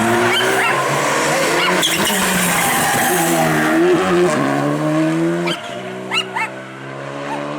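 Rally car engine at full throttle, its pitch climbing and dropping through gear changes, with a hiss of tyre noise. About five and a half seconds in it drops sharply in pitch and goes quieter as the car backs off.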